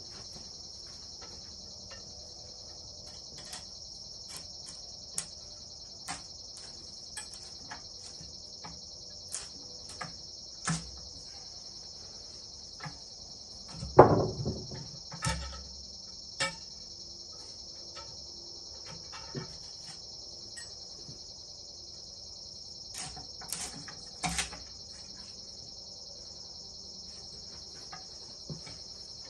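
Crickets chirping in a steady high trill, with scattered knocks and clatter and one loud thump about halfway through.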